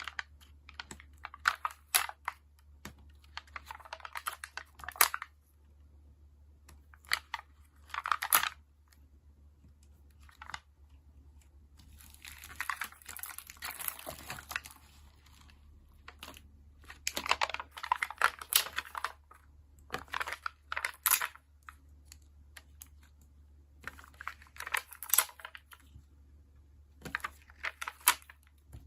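Stickers and paper being handled for journaling: sticker sheets peeled, pressed and tapped down, coming as clusters of small clicks and crinkly paper rustles with short pauses between them. A longer rustling stretch comes about halfway through, over a faint steady low hum.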